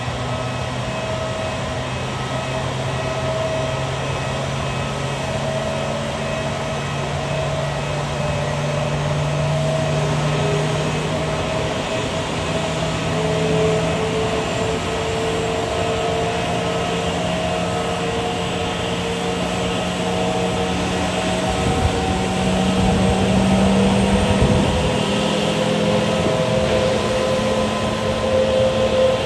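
Jet engines of an Airbus A320neo idling while the airliner taxis slowly. The steady whine carries several tones that rise gradually in pitch, and it grows somewhat louder near the end.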